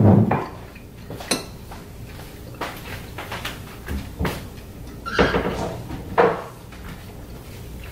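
Cutlery knocking and scraping on ceramic dinner plates in scattered short clinks while a meal is cut up and eaten.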